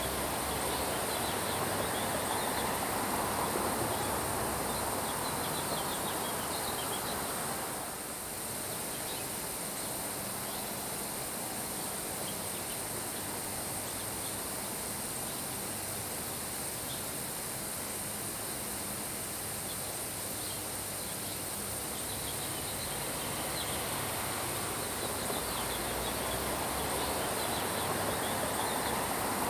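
Steady summer rain shower falling on grass, with wind, dipping briefly about eight seconds in. Faint high chirps run through it.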